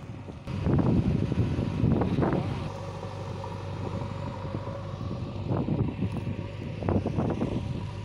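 JCB 3DX backhoe loader's diesel engine running steadily at a distance, a low hum, with bursts of wind noise on the microphone about a second in, midway and near the end.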